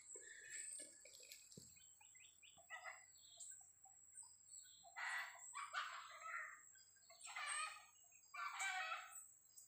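Faint red junglefowl calls, about four bursts in the second half, from a bird far off. Small bird chirps are heard in the first few seconds.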